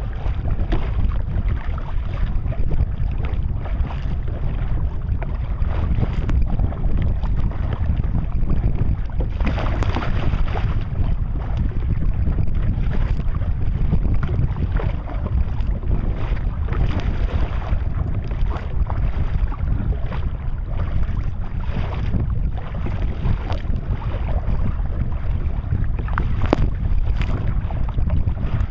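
Strong wind buffeting the microphone in a steady low rumble, with waves splashing against the kayak's bow every few seconds as it rides through chop.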